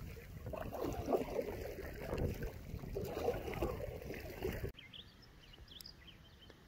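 Canoe paddling on choppy water: paddle strokes and water splashing against the hull, mixed with wind rushing on the microphone. About two-thirds of the way through it cuts suddenly to a much quieter background of calm water with a few faint bird chirps.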